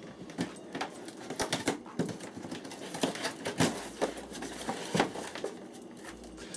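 Cardboard skateboard box being opened by hand: the lid and flaps scrape and rustle, with irregular sharp taps and knocks of cardboard throughout.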